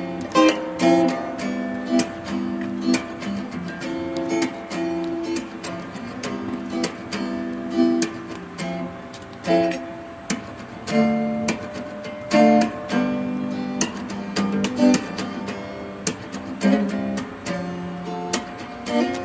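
Background acoustic guitar music, plucked and strummed.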